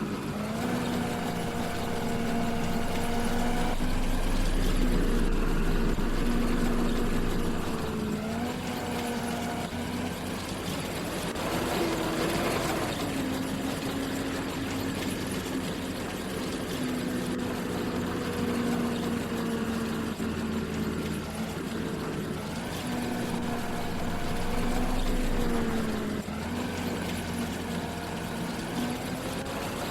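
A harvest machine's engine running steadily under load, its pitch rising and dropping a little every few seconds.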